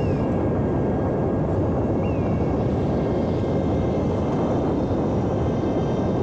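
Homemade electric RC airplane in flight: a steady high whine from its brushless motor and propeller over a loud, even rushing of wind. The tone slides briefly down in pitch twice, near the start and about two seconds in.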